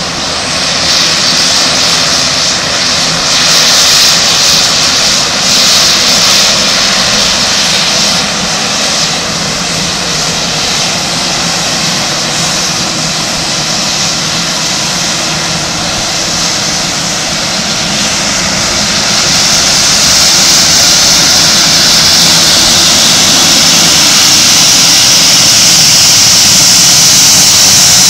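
Shorts SD360's twin Pratt & Whitney Canada PT6A turboprop engines running at close range: a steady loud rush and whine of turbines and propellers. It grows louder about two-thirds of the way through.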